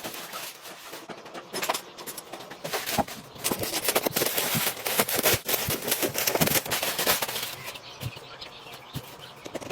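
Rapid, irregular clicks and knocks, scattered at first, then coming thick and fast through the middle before thinning out again.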